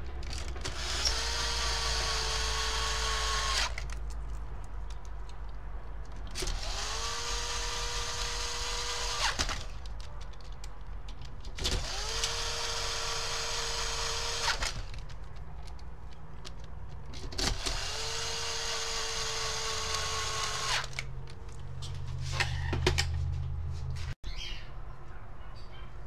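Cordless drill/driver driving in the screws that hold a box-fan motor to its frame. It runs four times, each run about three seconds: the motor whines up quickly to speed, holds steady, then stops.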